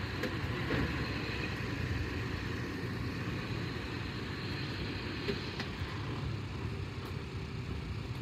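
SUV engine running steadily at low revs while it slowly reverses, pulling a boat on its trailer: a constant low hum.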